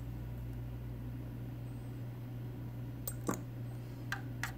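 A plastic pipette stirring coral dip in a plastic cup, giving a few light clicks against the cup in the second half, the loudest about three seconds in, over a steady low hum.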